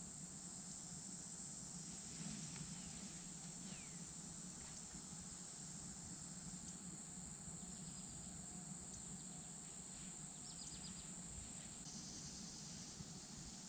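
Steady high-pitched insect buzz that cuts off about twelve seconds in.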